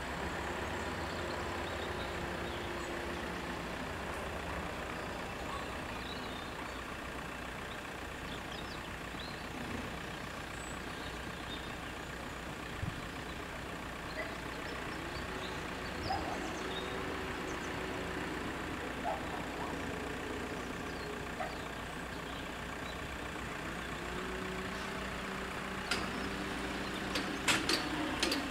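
An engine running steadily at low revs, its hum coming and going in pitch, with a few sharp clicks near the end.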